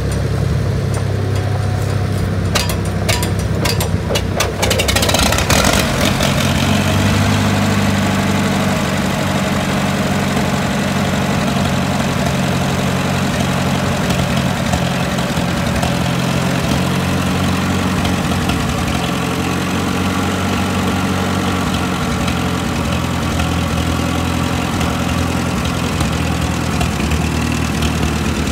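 Massey Harris 44 Standard tractor engine running steadily as the tractor is driven, with a run of sharp clicks a few seconds in and a brief pickup in level around five seconds in.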